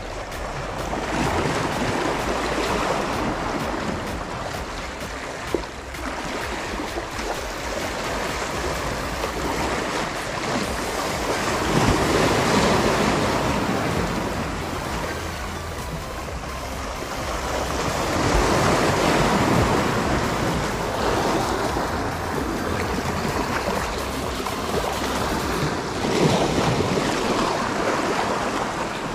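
Sea waves washing against shore rocks, several surges swelling and easing.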